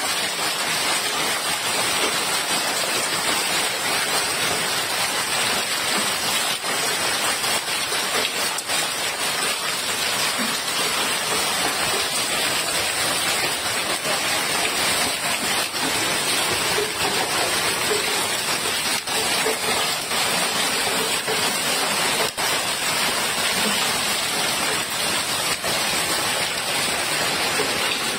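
Hailstorm: hailstones pelting down on lawn and paving, a loud, steady hiss of countless small impacts.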